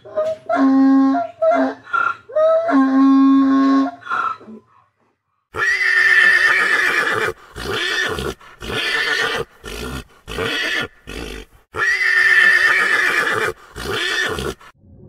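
A donkey brays in a run of alternating hee-haw notes for about four seconds. After a brief pause, horses neigh in a series of loud calls, some long and some short.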